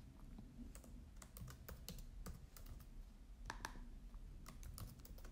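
Faint typing on a computer keyboard: irregular keystroke clicks as a column name and data type are entered.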